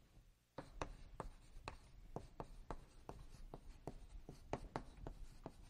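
Writing on a lecture board: a quick run of short tapping strokes, a few a second, starting about half a second in.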